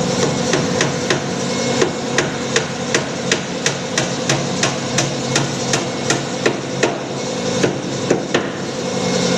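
Hammer blows in a steady run, about three a second, sharp and hard, with a brief pause near the end, over a steady engine-like hum.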